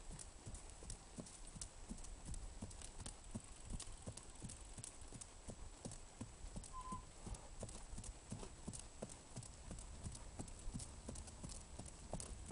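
Paint horse's hooves beating out a steady, even trot on a dirt trail.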